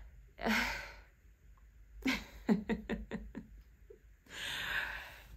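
A woman's quick breath in, then a short laugh of about six quick pulses, and a long breath out near the end.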